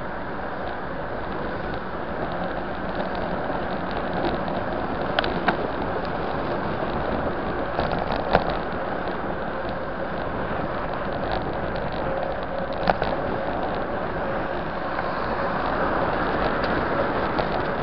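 Steady wind and tyre noise on a bicycle-mounted camera riding fast on a city road, with a few sharp clicks or knocks, about five seconds in, at about eight seconds and near thirteen seconds.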